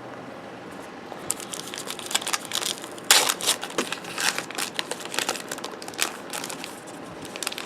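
A foil wrapper on a Topps Heritage baseball card pack crinkling and tearing as the pack is opened, with cards rustling, in irregular crackles. The crackling starts about a second in and is loudest about three seconds in.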